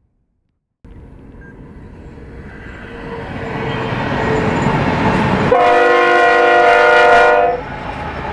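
BNSF diesel freight train approaching, a rumble building steadily from about a second in. Partway through, the lead locomotive sounds one long horn blast, a chord of several notes lasting about two seconds, then the rumble of the locomotives passing continues.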